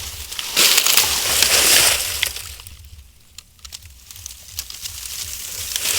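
Splashing and sloshing in shallow muddy water as fish are grabbed for by hand, in two bursts: one from about half a second to two seconds in, another near the end, with scattered sharp splashes and clicks between.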